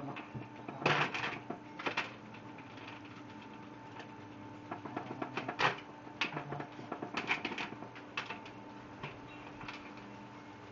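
Husky drumming on a plastic bucket lid: irregular clusters of quick taps and clicks, some in fast runs, over a faint steady hum.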